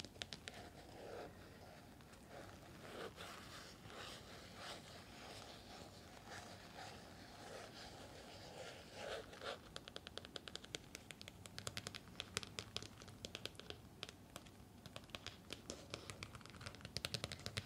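Fingernails scratching and rubbing on an LED face mask, turning to rapid, quick tapping about ten seconds in.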